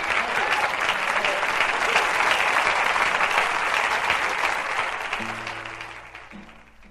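Live concert audience applauding at the end of a song, the clapping fading away over the last couple of seconds, with a few low steady notes sounding under it near the end.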